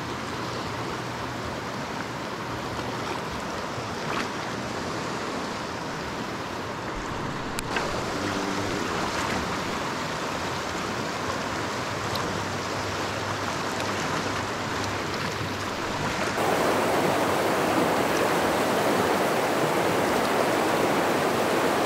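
River water rushing over a rocky riffle in a steady wash, louder from about two-thirds of the way through.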